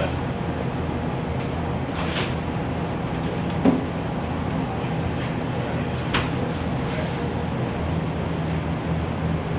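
Steady low machinery hum aboard ship, with a few scattered knocks and clicks. The loudest knock comes a little under four seconds in.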